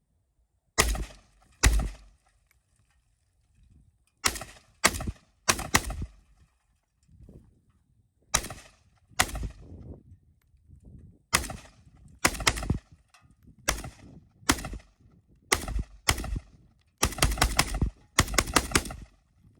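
Gunshots from a firearm: single shots at uneven gaps of about half a second to two seconds, then a quick string of shots in the last couple of seconds.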